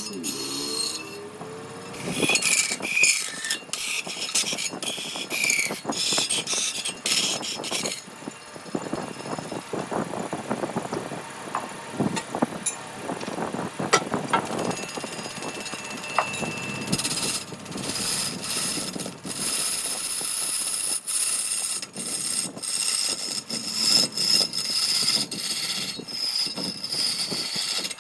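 Woodworking power tools running on wood, with steady high whines and many knocks and clatters in between.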